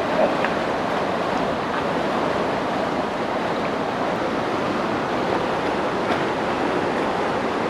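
Steady rushing of the Webuye Falls on the Nzoia River, water pouring over rock.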